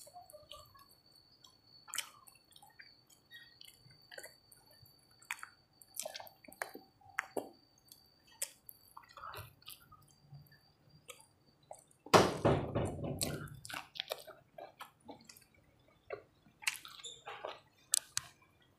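Close-up wet chewing and lip-smacking of a person eating rice and fish curry by hand, with many small clicks and squishy mouth sounds. About twelve seconds in, a much louder burst of noise lasts about a second and a half.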